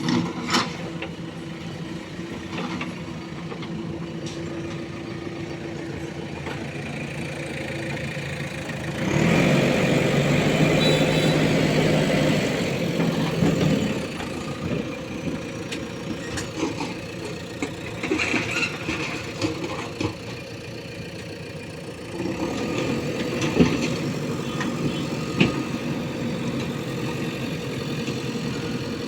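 JCB 3DX backhoe loader's diesel engine running steadily at work, revving up louder for several seconds about a third of the way in, then settling back. A few sharp knocks sound over it.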